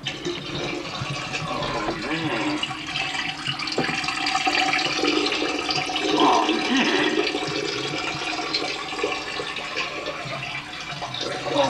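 A long stream of urine splashing into a toilet bowl. It starts abruptly and runs steadily on.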